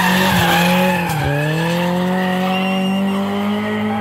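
Rally car engine held at high revs, dipping briefly about a second in, then climbing slowly again as it pulls, with tyres squealing.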